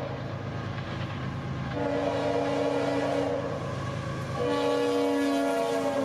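Diesel locomotive's multi-chime air horn blowing long blasts: one ends as the sound starts, another sounds for about a second and a half, and a third begins a little past the middle and holds, over the low rumble of the passing train.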